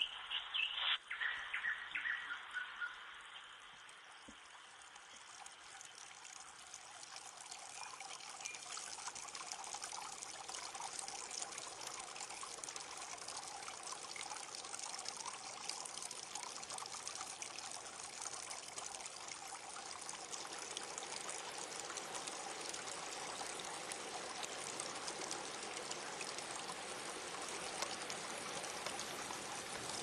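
Stream water running and splashing over rocky riffles, a steady rushing hiss that swells in after a few seconds. Brief high chirps stand out in the first couple of seconds.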